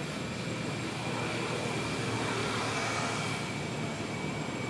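Steady rushing outdoor background noise that swells slightly in the middle, with a faint constant high-pitched whine over it.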